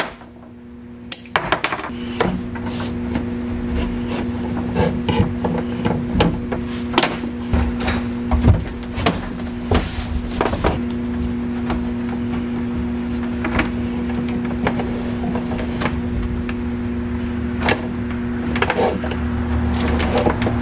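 Clicks, knocks and rustles of electrical cables and tools being handled while solar panel wiring is routed. A steady low hum runs underneath, starting about a second in.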